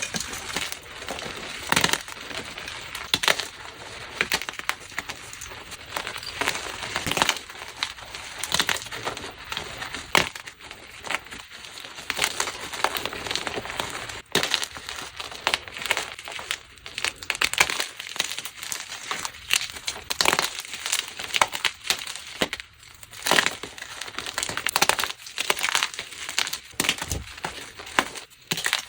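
Blocks of gym chalk being crushed, a dense run of dry, crunchy and crispy crackles.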